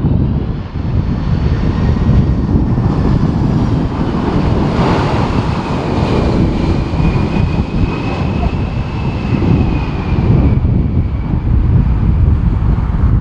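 Heavy wind buffeting the microphone with a low rumble, over the engines of a passing jet airliner. A faint high engine whine swells and bends slowly in pitch through the middle.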